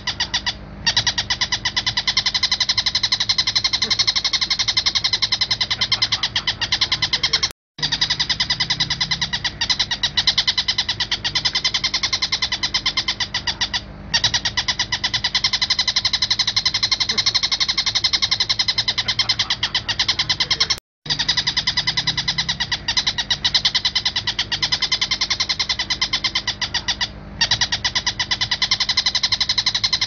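Oriental dollarbird (tengkek buto) calling in a long, fast run of rapidly repeated notes. The run is broken by short pauses every few seconds and cuts out abruptly twice, at about a quarter and two-thirds of the way through.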